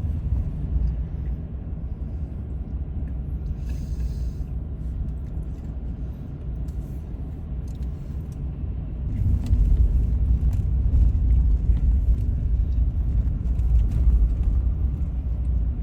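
Road and engine noise heard inside a moving car: a steady low rumble that gets louder about nine seconds in.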